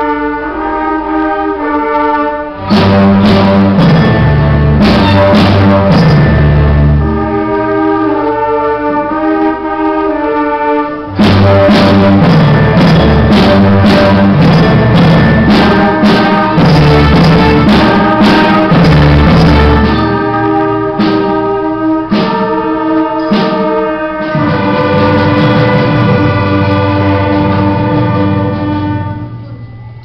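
Youth orchestra of violins, cellos, double bass, flutes and clarinets playing loud sustained chords over strong low notes, punctuated by sharp strikes. The music dies away near the end.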